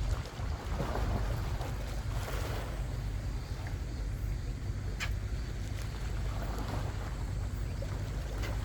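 Wind buffeting the microphone with a steady low rumble, over waves washing, with two short sharp clicks, one about halfway and one near the end.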